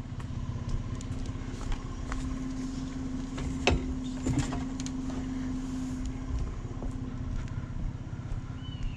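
Pickup truck engine idling steadily, with a sharp knock about three and a half seconds in and a lighter clunk just after as an electric scooter is set down in the truck bed.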